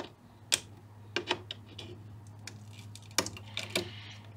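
A flat metal tool clicking and scraping against an amp's capacitor board as silicone-glued electrolytic filter capacitors are pried loose. A few sharp, uneven clicks, twice in quick succession about a second in and three more after three seconds, over a faint steady hum.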